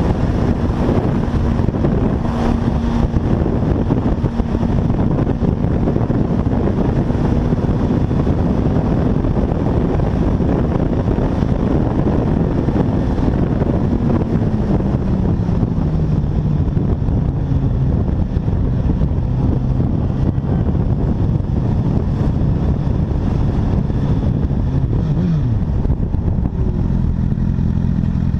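Motorcycle engine running at a steady cruise under heavy wind and road noise. About halfway through, its note falls as the bike slows. Near the end a brief rev rises and drops, and the engine settles to a lower steady note.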